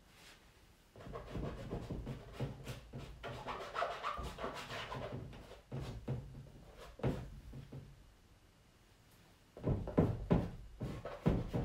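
Wax pastel rubbing and scraping across canvas in irregular strokes, with low thuds from the canvas and a short pause before the marks resume near the end.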